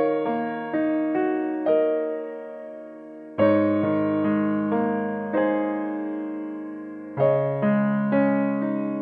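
Slow, gentle piano music: chords and single notes struck every half second or so, each ringing and dying away, with fuller chords about three and a half seconds and about seven seconds in.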